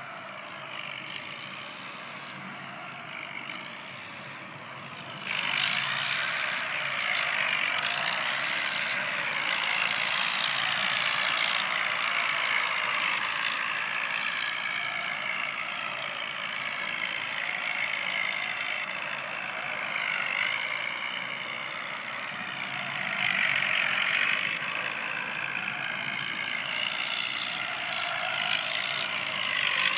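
A tractor running along the road with its load rattling and a steady noise of road and wind. It gets noticeably louder about five seconds in.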